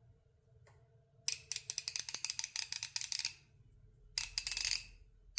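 Craftsman V-Series 1/2-inch drive ratchet clicking rapidly as it is swung back and forth, its head freshly oiled with 3-in-1 oil: a run of quick clicks for about two seconds, then a shorter burst near the end.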